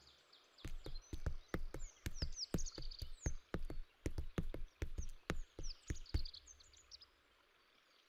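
Hooves of an Iberian ibex clicking on rock as it walks, a run of sharp irregular knocks that stops about six seconds in. Short, high falling bird chirps sound throughout.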